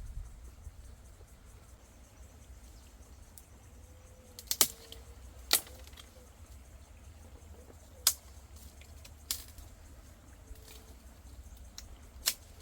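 Five sharp clicks or snaps spread over about eight seconds, over a low steady rumble.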